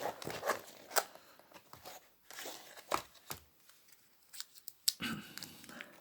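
Handling noise from fitting a replacement laptop LCD panel: scattered small clicks and plastic rustling as the display cable connector is plugged into the new screen, with sharper clicks about a second, three seconds and five seconds in.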